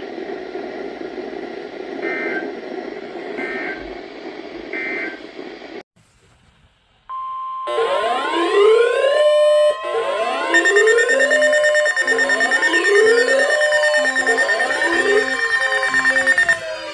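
EAS end-of-message data signal: three short two-tone warbling bursts over radio static. After a second of silence, a steady 1050 Hz weather-radio attention tone starts, then many alarm tones and electronic siren wails pile on top of it, repeatedly rising in pitch and overlapping.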